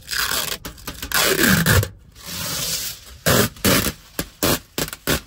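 Black tint film being peeled off a car's side window glass: a long noisy pull over the first few seconds, then a run of short tearing tugs.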